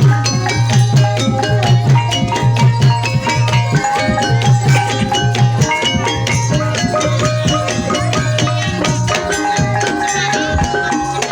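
Gamelan music accompanying an ebeg dance: quick, dense metallophone and drum strikes over a low held tone, with rattling percussion.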